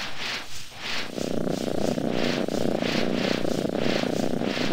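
Petz virtual cat purring through the computer's sound: a steady low purr sets in about a second in, over rhythmic breathy pulses about two or three a second.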